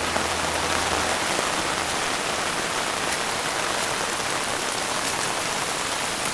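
Heavy rain falling steadily, a dense even hiss of drops hitting the ground and standing water.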